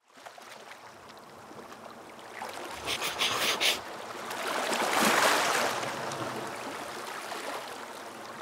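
Small sea waves breaking and washing up a beach, fading in from silence and swelling to a peak about five seconds in.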